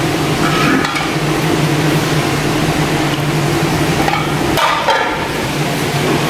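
A steady mechanical hum with a constant hiss over it, like a motor running.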